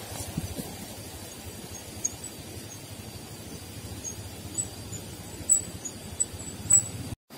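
Bicycle rolling along a wet road strewn with mud and stones, water running across it: a steady low rumble of tyres on the wet surface, with a few short high squeaks and clicks in the second half. The sound drops out briefly near the end.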